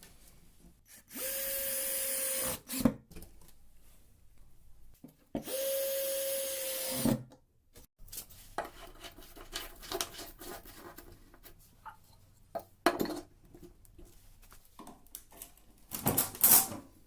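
An electric power tool motor runs in two short bursts of about a second and a half each, with a steady whine. Clicks and knocks of metal and tools being handled follow, the loudest cluster near the end.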